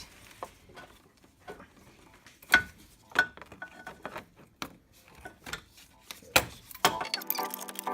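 Scattered clicks and light metallic clinks of tools and parts being worked loose while the last fastening of a car's radiator comes out, with two sharper knocks, one about two and a half seconds in and one near the end. Background music comes in just before the end.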